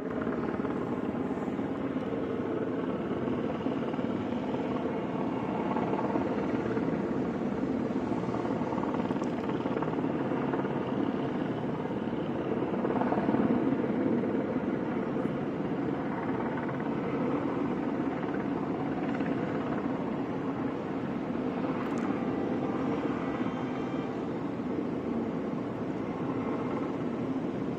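Helicopters flying overhead, a steady rotor and engine drone that swells slightly about twelve to fourteen seconds in.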